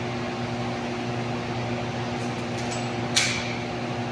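Steady mechanical hum of an electric motor, with a brief sharp click about three seconds in.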